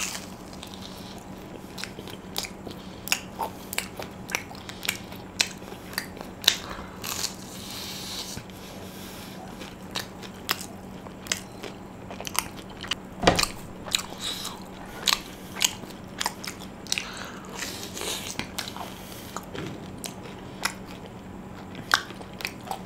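Close-up chewing and biting of a fried chicken croquette with a crunchy crust: irregular crisp crunches and wet mouth clicks, about one or two a second. A faint steady hum runs underneath.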